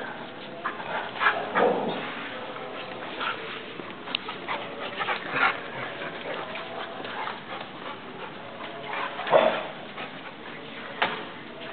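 Dogs playing together and making short, scattered dog noises, loudest about a second and a half in and again about nine seconds in.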